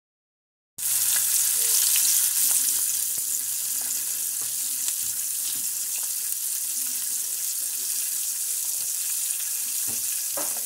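Gaspereau (alewife) frying in hot oil in a cast-iron skillet: a steady sizzle with scattered small pops and crackles. It cuts in abruptly about a second in, after silence, and is loudest at first before settling slightly.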